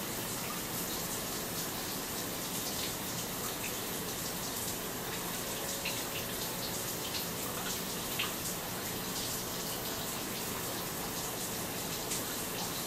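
Steady rush of running water, as from a shower or tap, with a few faint clicks over it.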